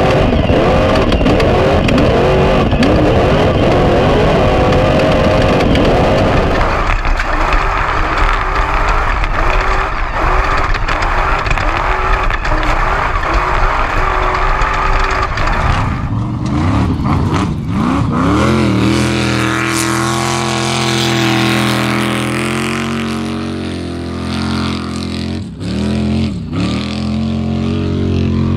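Trophy truck engine running hard under race load, heard from inside the cab, mixed with the clatter and rush of the truck over rough ground. Its note keeps rising and falling, dipping and climbing back up sharply about two thirds of the way in and again near the end.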